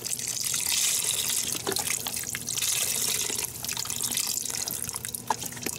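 Chicken broth pouring in a steady stream from a carton into a pot of soup ingredients, a little weaker after about three and a half seconds.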